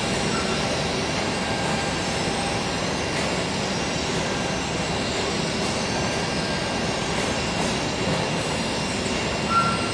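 Steady machine-shop noise from industrial machinery around a CNC machining centre and robot cell: an even rumble and hiss with a faint high steady whine, and a short beep near the end.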